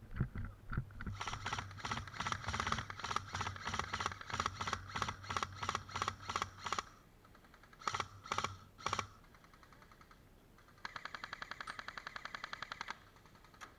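Airsoft rifle firing: a steady string of single shots, about three a second, for some six seconds, then three more shots, then a faster burst of about two seconds near the end.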